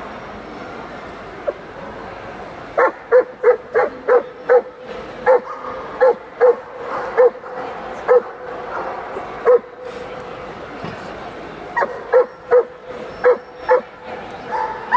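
A dog barking in short, sharp yips, about twenty of them all at the same pitch, in a long run starting a few seconds in and a shorter run near the end, over the murmur of a crowded hall.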